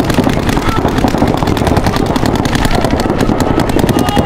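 Paintball markers firing in rapid streams, a fast, even rattle of shots.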